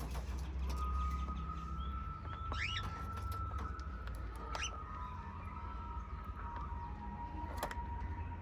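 Pet cage birds chirping: a couple of short rising chirps, with scattered small clicks from pecking at food. A long, steady whistle-like tone and a low hum run underneath.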